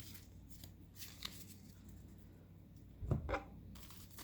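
Pokémon trading cards being handled and slid past one another, giving soft ticks and rustles, with one louder brief brushing sound about three seconds in.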